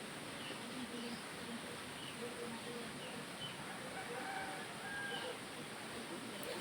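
Faint, scattered short bird calls, chickens among them, over a steady background hiss.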